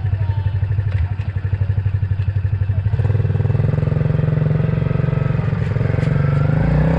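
Small motorbike engine running with an even, rapid putter. About three seconds in it speeds up and gets louder as the bike moves off.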